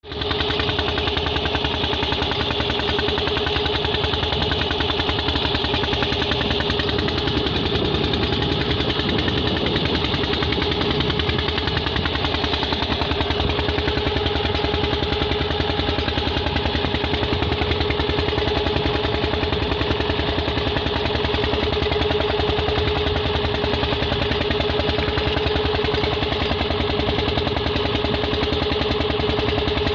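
Fishing boat's engine running steadily at an even speed, with a rapid regular beat and a constant hum.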